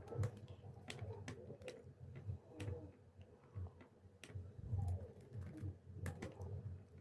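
Faint, scattered clicks of a laptop being operated, a handful of sharp taps a second or more apart, over a steady low hum.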